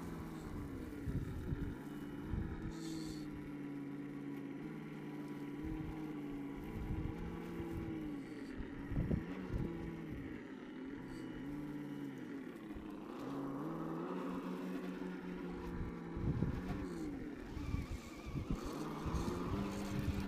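Electric motor and geared drivetrain of a 1:10 scale RC rock crawler whining as it climbs a rock slab. The pitch holds, then rises and falls with the throttle, with scattered low thumps.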